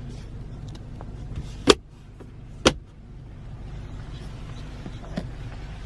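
Two sharp clicks about a second apart over a steady low hum in a car's cabin: interior trim being handled, a lid or latch snapping.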